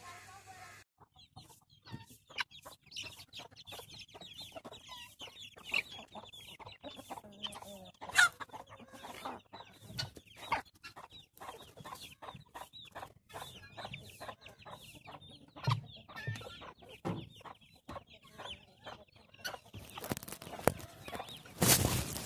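Chickens clucking, with a steady stream of high chirping and scattered clicks and knocks. Near the end, a loud rushing noise lasts about two seconds.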